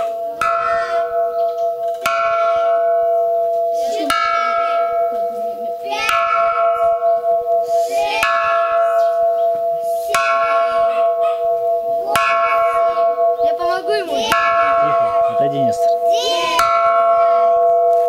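An improvised bell made from a hanging gas cylinder, struck at a steady pace about every two seconds, nine strokes here. Each stroke rings on, so the tone carries through between strikes.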